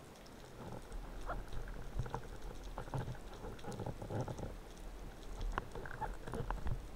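Underwater noise heard through a camera mounted on a speargun: scattered faint clicks and irregular short low knocks and crackles, growing busier from about a second in.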